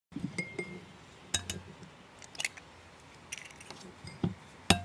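Scattered light clinks and taps on a ceramic bowl as eggs are cracked into it, with two sharp knocks near the end from an egg struck on the rim.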